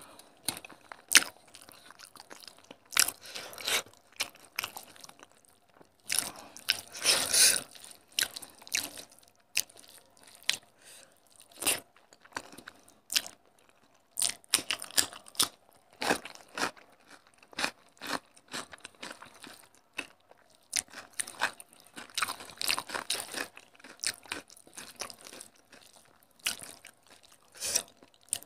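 Close-miked eating: a person chewing mouthfuls of curry-mixed rice eaten by hand and biting raw cucumber, with many irregular sharp crunches and wet mouth clicks.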